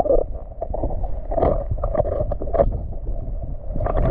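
Muffled water sloshing and gurgling picked up by an action camera's microphone held underwater, with irregular knocks and splashes.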